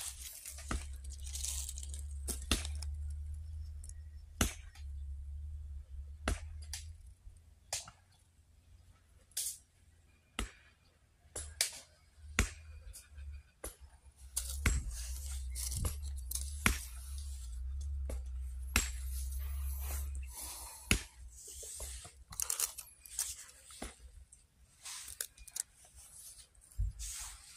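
Close handling noise: scattered sharp clicks and crackly rustles. A low rumble runs under it for the first seven seconds or so and again from about 14 to 20 seconds in.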